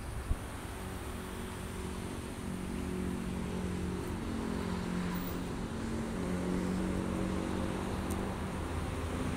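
Ambulance van's engine idling, a steady low hum with a slightly wavering pitch. A single short click comes just after the start.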